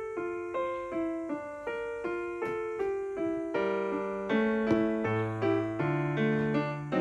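Background piano music: a gentle melody of single notes and chords struck at an even, unhurried pace.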